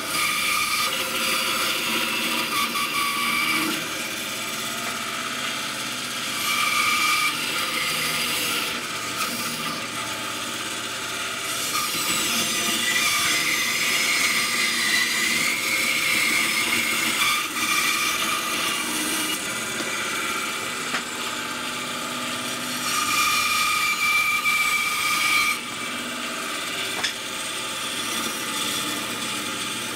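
Bandsaw cutting through a wooden shoe last, shaping its profile. The saw runs steadily, and its whine grows louder in several stretches of a few seconds each as the blade bites into the wood.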